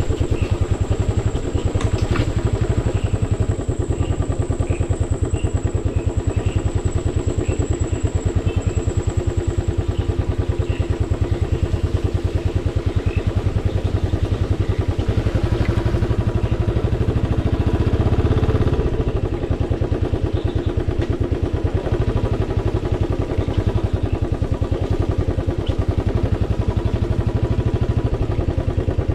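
Royal Enfield motorcycle engine running steadily as the bike is ridden, a rapid, even beat of firing strokes, swelling briefly about eighteen seconds in.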